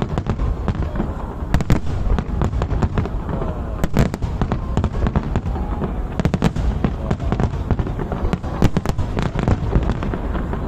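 Aerial fireworks bursting in quick succession: many sharp bangs and crackles over a continuous low rumble, with the biggest bangs about a second and a half, four and eight and a half seconds in.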